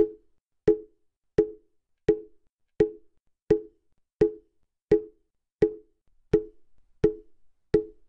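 Mokugyo (Buddhist wooden fish drum) struck at a slow, even beat, a little under one and a half strokes a second; each stroke is a short wooden knock that dies away quickly.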